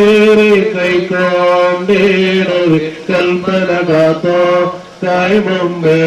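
Male clergy chanting a slow liturgical funeral hymn, holding long steady notes in phrases, with short breaks between phrases about three seconds in and near five seconds.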